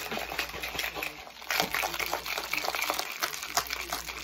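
A shaker cup of water and energy-drink powder being shaken, the liquid sloshing rapidly inside the closed cup.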